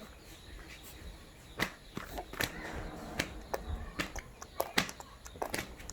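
A series of sharp, irregular clicks and knocks, about a dozen, starting a little over a second and a half in.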